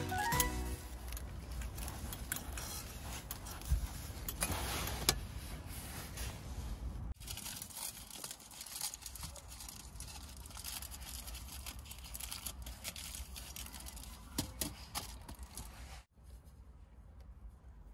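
Small handling noises, scattered clicks, clinks and rustles, over a steady low rumble, with a few sharper ticks.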